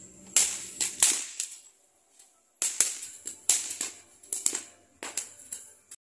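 Fireworks going off: an irregular string of sharp bangs and crackling pops, with a lull of about a second near the middle.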